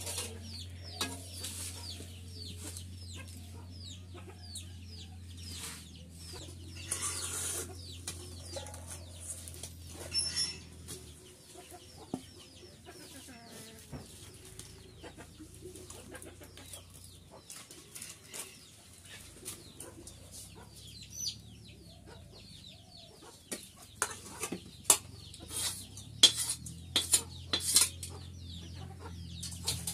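Chickens cluck on and off. A spoon and hands clink and scrape against aluminium bowls and plates, with the sharpest, loudest clinks in a burst near the end.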